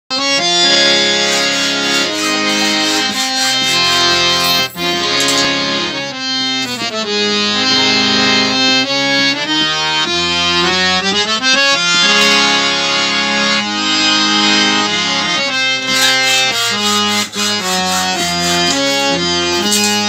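Maharaja BGH three-reed (bass, male, female) scale-changer harmonium played steadily, the bellows pumped to keep the reeds sounding: a tune of changing notes over sustained lower notes.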